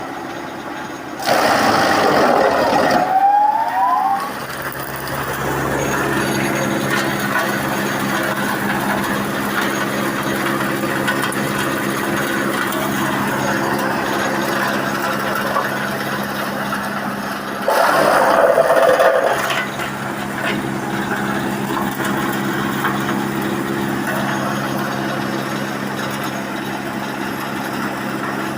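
A double-conveyor wood sawdust and shavings machine running with a steady hum. Twice it turns louder and harsher for a few seconds, and the first time ends in a rising whine.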